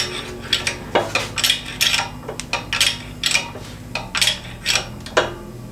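Sharp metallic clicks and cracks, irregular and about two a second, as the Chevy Aveo's wheel hub and bearing are forced apart under a hydraulic shop press, over a steady low hum.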